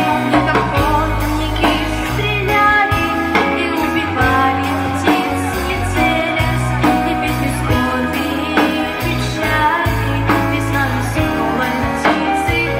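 Young girls' voices singing a slow, sad song over a backing track with a steady beat and bass line.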